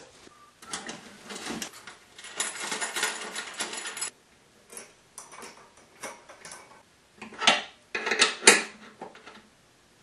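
Metal parts and hand tools clinking and rattling as a roller chain is fitted and the motor bracket bolts are tightened with a wrench: a busy clatter for the first few seconds, then scattered sharper clinks, the loudest near the end.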